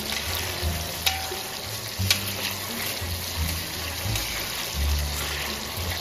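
Oil sizzling steadily around shrimp, cherry tomatoes and mushrooms frying in a griddle pan, with a couple of sharp clicks. Background music with a low bassline plays over it.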